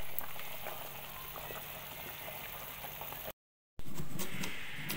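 Pot of water with a whole chicken boiling, bubbling and popping steadily over a low hum. It cuts off suddenly about three seconds in, and after a short silence a cleaver chops on a wooden cutting board near the end.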